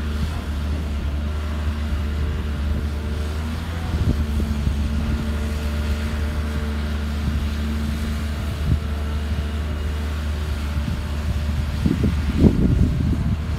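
Heavy diesel engine of a hydraulic excavator running steadily while it digs, its pitch shifting a few times as the load changes. Near the end come irregular knocks and scraping, typical of the bucket working in the soil.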